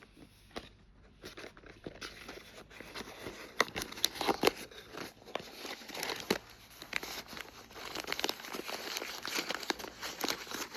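Plastic packaging crinkling and tearing as a toy mystery capsule is unwrapped by hand, in a jumble of crackles and sharp ticks that starts about two seconds in.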